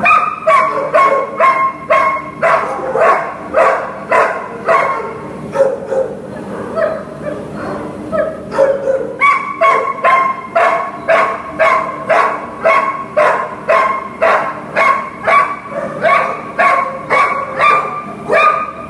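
A dog barking over and over, about two barks a second, without a break.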